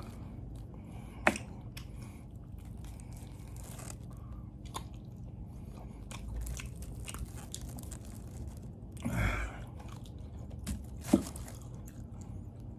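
A person chewing and gnawing on braised pig's trotter, with many small wet mouth clicks and smacks and a couple of sharper clicks.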